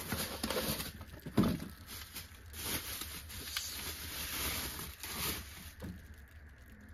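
Cardboard box being handled and a part unwrapped from crinkling bubble wrap: irregular rustling and crackling, with one firmer knock about a second and a half in, growing quieter near the end.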